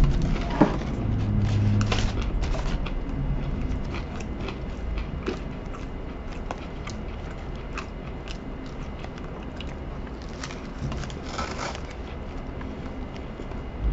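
Close-up chewing of a mouthful of Wendy's spicy chicken sandwich, with many small clicks, busiest in the first few seconds and again briefly near the end.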